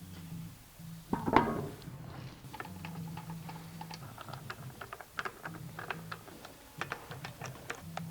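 Hand socket ratchet clicking in short, irregular runs as the front axle nut is run down, after a single knock about a second in.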